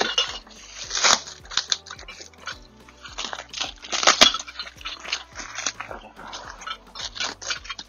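Rustling packaging and irregular clicks and clinks as aftermarket motorcycle exhaust parts are unpacked and handled.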